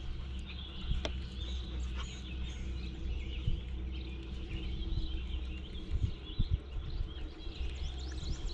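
Many small birds chirping and calling over a steady low rumble, with a few soft low thumps about six seconds in.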